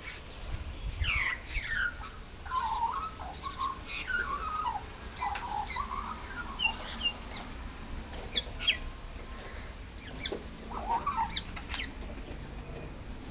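Several birds calling: a scatter of short chirps and quick downward-sliding whistled notes, overlapping and irregular.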